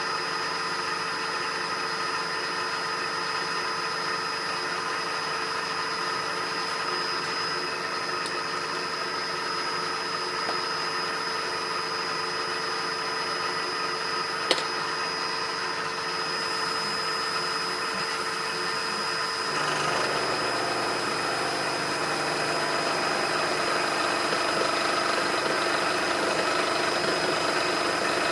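Metal lathe running steadily with a whining hum, taking a cut on steel stock. About 14 seconds in there is one sharp click. About 20 seconds in, the tone changes and the sound gets slightly louder.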